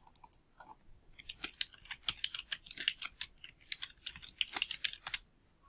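Computer keyboard typing: a short flurry of clicks, then a run of quick keystrokes lasting about four seconds that stops shortly before the end.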